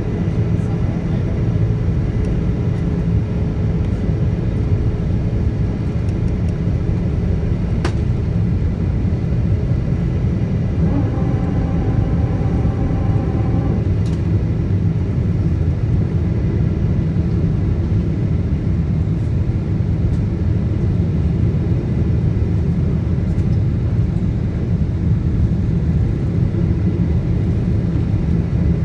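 Steady in-flight cabin rumble of a Boeing 777-200ER on its descent, engine and airflow noise heard from a window seat beside the engine. A brief higher tone sounds about eleven seconds in and lasts some three seconds.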